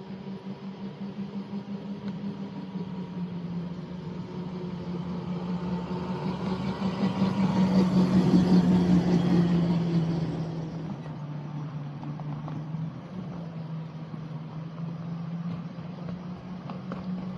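A small ride-on-scale locomotive's engine running steadily as the train moves along the track. It grows louder to a peak about halfway through, then fades a little as it passes.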